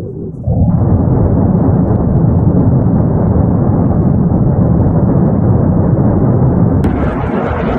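Volcanic eruption at La Palma's Cumbre Vieja: a continuous deep rumble from the lava-fountaining vent. The rumble is weaker for the first half second, and a hissier layer joins near the end.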